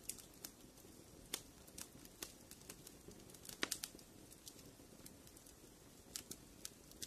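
Campfire crackling faintly: sparse, irregular pops and snaps, with a small cluster of louder pops about three and a half seconds in.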